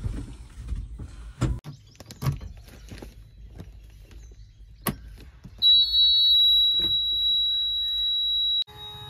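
JCB 3DX backhoe loader's cab warning buzzer, sounded as the ignition key is turned: a click, then a steady high-pitched beep lasting about three seconds that cuts off suddenly. Before it, scattered clicks and knocks of controls in the cab; just before the end a low, steady engine hum begins.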